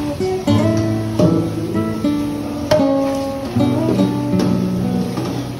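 Background music: an acoustic guitar playing a melody of plucked and strummed notes over low bass notes.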